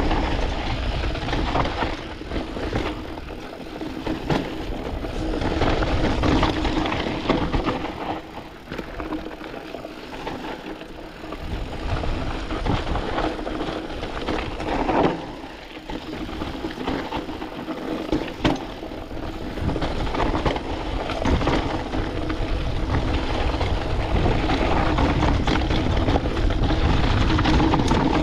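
Canyon Spectral AL 6.0 mountain bike rolling over a dusty, rocky trail: a steady crunch of tyres on gravel and rattling of the bike, over a low rumble of wind on the microphone, with a few sharp knocks.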